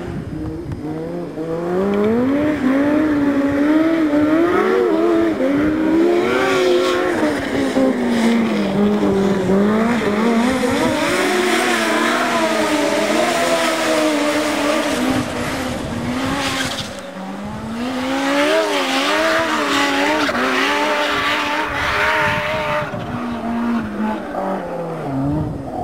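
Snowmobile engine revving hard under load, its pitch rising and falling again and again as the throttle is worked, easing off briefly about two-thirds of the way through.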